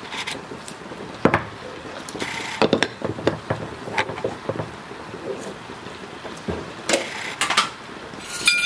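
Kitchen utensils and cookware being handled: scattered knocks and clatter, ending in a short ringing metallic clink near the end.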